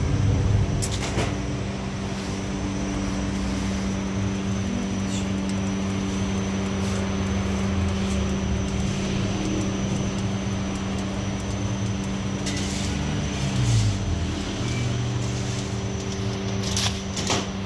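Steady hum of bakery machinery: an even drone with a faint high whine over a low rumble, broken now and then by a few short clicks.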